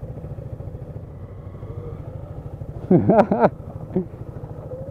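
Single-cylinder engine of a Honda CG 160 Start motorcycle running at low speed with a steady pulsing note. About three seconds in, a short loud vocal exclamation cuts in over it.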